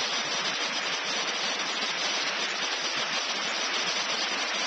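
Steady, unbroken rush of water pouring down a 25 m waterfall.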